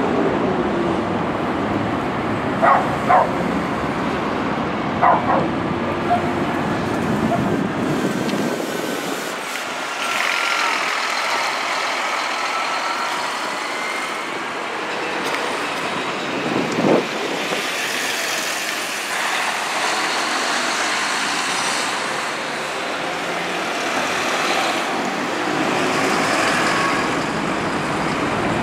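City traffic with a Scania diesel double-decker coach (Marcopolo Paradiso 1800DD) running as it pulls through, a deep engine rumble for the first several seconds with a few short sharp sounds among it. After that comes steadier passing-traffic noise with a brief whine and one more short sharp sound about two-thirds of the way in.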